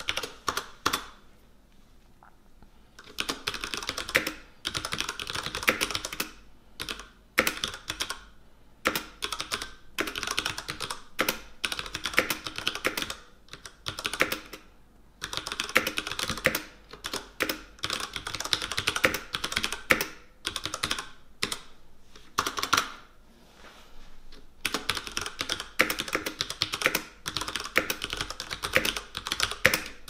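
Typing on a Ducky Shine 3 TKL mechanical keyboard with tactile Cherry MX Brown switches: quick runs of key presses with clacking keycaps, broken by brief pauses about a second in, midway and shortly before the end.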